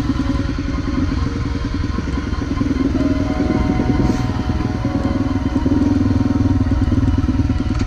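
Honda CRF250's single-cylinder engine running steadily as the bike rides along, heard from on the bike itself. The engine gets a little louder in the second half.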